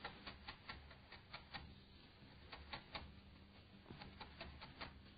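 Faint, quick, even taps of a chef's knife finely chopping spring onion on a wooden cutting board, about four or five strokes a second, in short runs with brief pauses between them.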